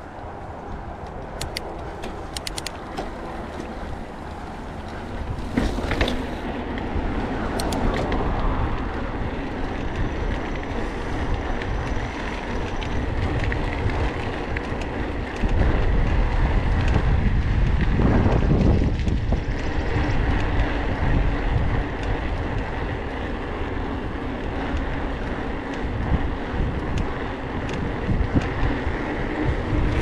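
Wind buffeting an action-camera microphone over the hum of mountain bike tyres rolling on grass and pavement. The rumble grows louder for a few seconds about halfway through, and a few sharp clicks come from the bike near the start.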